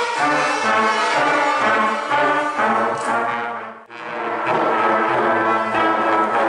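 A children's school band of violins and trombones playing a piece together, the trombones most prominent, with a short break just under four seconds in before the playing carries on.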